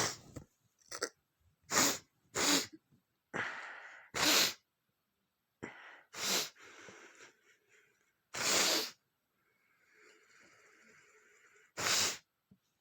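A person sneezing again and again: about eight sharp sneezes, with breathing and sniffling in between. The uploader puts the fit down to a flower allergy.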